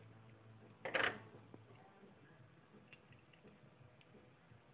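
Hand tools and small steel parts being handled: a wrench turning a nut on a short threaded rod. There is one louder clatter about a second in, then a few faint ticks.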